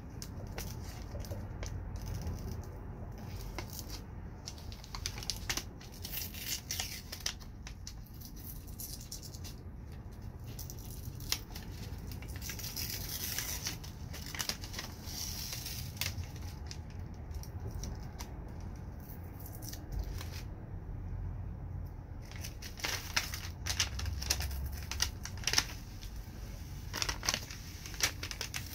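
Protective plastic film being peeled off a clear Lexan polycarbonate window pane, giving an irregular crackling, tearing sound with scattered small clicks.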